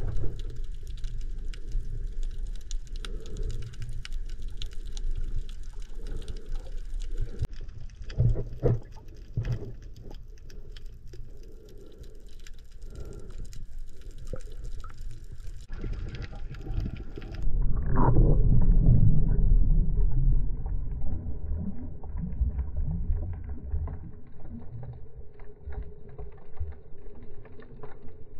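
Underwater sound through a camera's waterproof housing: a low, muffled rumble of moving water with scattered clicking and crackling. A louder low rush of water comes about two-thirds of the way through and lasts a few seconds.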